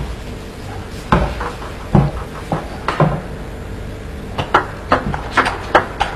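Table tennis ball knocking on the table about once a second, three or four times, then a quick run of ball-on-bat and ball-on-table clicks from about four and a half seconds in as a rally gets going.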